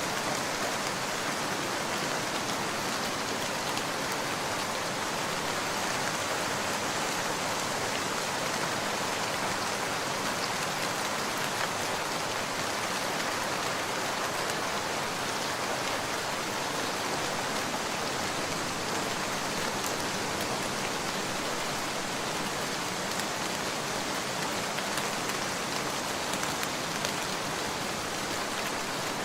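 Heavy rain falling steadily, an even wash of noise with individual drops ticking through it.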